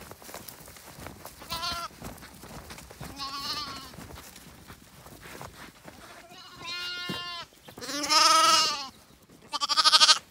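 Zwartbles lambs bleating, five calls in all, the last two the loudest and the final one quavering. They are hungry lambs calling for their evening feed.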